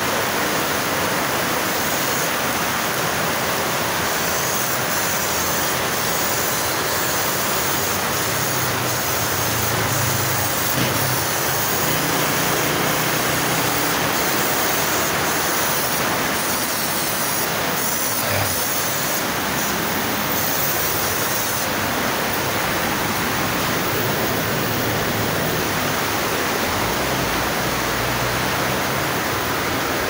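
Paint spray gun, powered by a refrigerator compressor, hissing steadily as it sprays.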